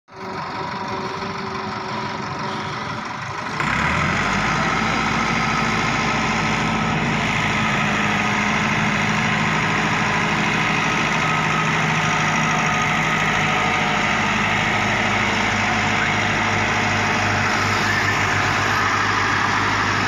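Massey Ferguson 375 tractor's diesel engine running steadily while towing a potato harvester, jumping louder about three and a half seconds in.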